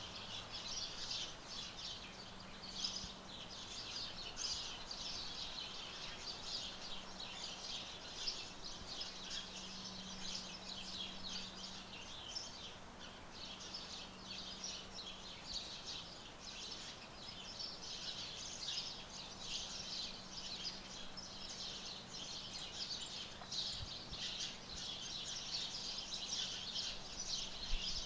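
Dense chorus of many birds chirping continuously, over a faint steady low hum.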